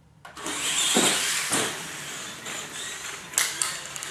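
R/C monster truck driving hard across the shop floor: its motor whirring and tyres rushing, starting suddenly just after the start and swelling and easing with the throttle, with two sharp knocks a little over three seconds in.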